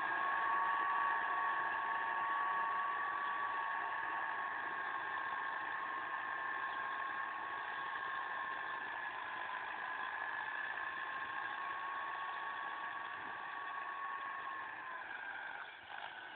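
Landini 6550 tractor running under load as it pulls a tillage implement across the field, a steady high whine over engine noise that slowly fades as it moves away. The whine stops near the end.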